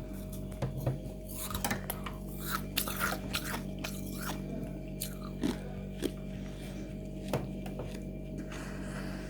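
Freezer frost being bitten and chewed: a dense run of crisp, crackling crunches in the first half, then a few single crunches.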